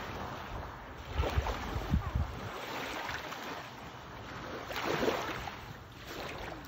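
Wind buffeting the microphone over small waves lapping on open water, with a few low gusty thumps a bit over a second in.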